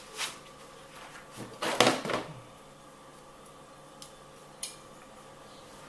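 Metal pruning cutters snipping and clicking as branches and pine cones are cut from a young Scots pine. There is a cluster of snips and handling noise about two seconds in, and a few single sharp clicks later.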